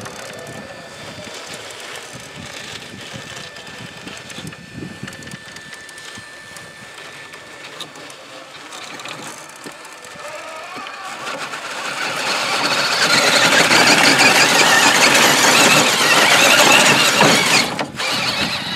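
Axial SCX6 RC rock crawler's electric drivetrain whining as it crawls up a rock step, faint at first, then much louder and rougher from about twelve seconds in for several seconds.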